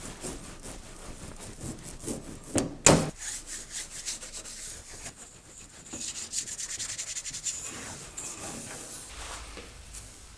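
A metal point scratching into a copper plate in short rasping strokes, the sound of notes being incised for an etching. Two sharper knocks come about three seconds in, and a steadier stretch of scratching follows from about six seconds in.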